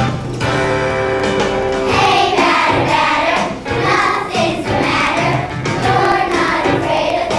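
A chorus of young children singing a song together over musical accompaniment.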